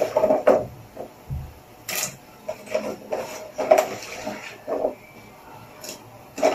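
A few sharp clicks and a dull low thump, with short bits of a voice between them.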